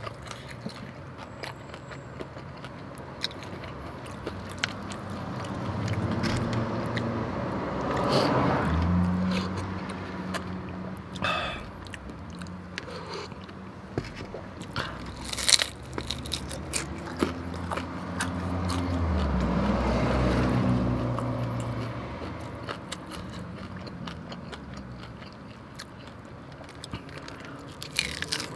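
Close-up eating sounds: a man biting into and chewing birria tacos, with wet mouth clicks and crunches. A low rumble swells up and fades twice, about eight and twenty seconds in.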